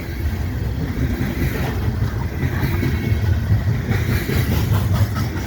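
Canadian National freight train passing close by: a steady, loud low rumble of the train rolling past, with a few faint clicks near the end.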